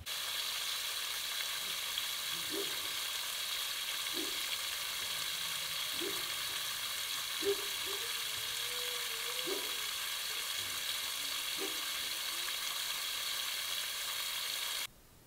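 Steady hiss from a leak, not rain, cutting off suddenly near the end.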